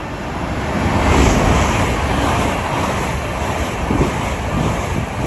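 LNER Azuma high-speed train running through the station at speed: a loud rush of air and wheel noise that builds over the first second and holds, with wind buffeting the microphone.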